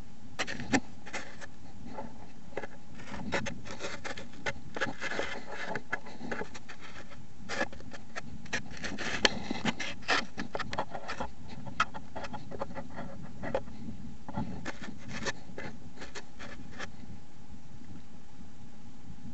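Irregular rustling, scraping and sharp clicks of an animal moving and scratching in soil and dry leaf litter close to the trail camera's microphone, stopping a couple of seconds before the end. Underneath is a steady hiss and a faint steady tone.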